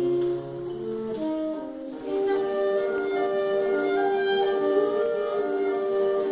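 A saxophone quartet playing: a quieter, thinner passage with the low notes dropping out, then about two seconds in the group comes back in fuller on a long held chord while a higher line moves above it.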